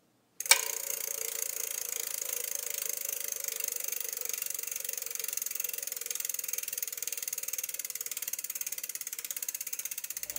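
Bicycle rear freehub ratcheting: a rapid, even ticking of the pawls as the wheel spins while not being pedalled, starting with a sharp click about half a second in.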